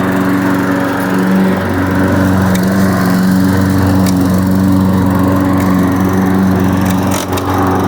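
Old gasoline lawn mower engine running at a steady speed, freshly started for the first time of the year with the help of starter fluid. Its speed wavers slightly and the level dips briefly about seven seconds in.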